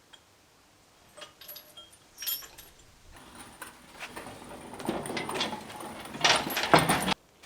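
Metal clinks and knocks, then a growing clatter of metal rattling and scraping as the engine and gearbox are worked down on a hoist into the engine bay, loudest just before it cuts off suddenly near the end.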